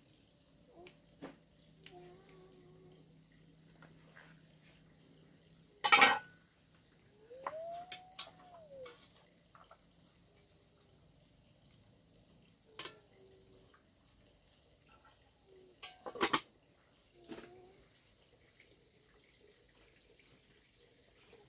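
Steady high-pitched drone of insects, with two sharp knocks about six and sixteen seconds in and a few short faint calls between them.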